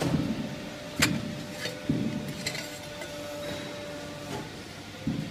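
Steady hum of a CNC pipe-bending machine, with a sharp metallic clank about a second in and another knock about two seconds in, as the bent car exhaust pipe is released from the die and lifted out.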